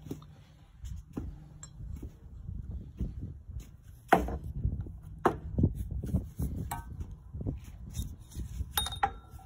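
Irregular knocks and clatter, the loudest about four seconds in, with a couple of short ringing metallic clinks near the end, over low rumbling handling noise on the phone's microphone.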